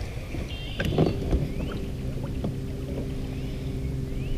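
Bow-mount electric trolling motor switching on about halfway through and running with a steady hum, over low rumble. A short knock sounds about a second in.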